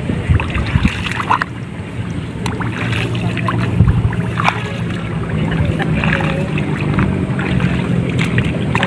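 Footsteps sloshing and squelching through the shallow water and mud of a flooded rice paddy, as irregular short splashes over a steady low rumble.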